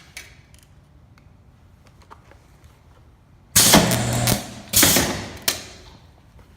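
Western Arctronics 30 kVA spot welder firing a weld about three and a half seconds in. There is a loud transformer hum with crackling spatter for about a second, a second crackling burst, then a sharp snap. The weld current is set too high and the arc is too strong, enough to burn a hole through the small pieces.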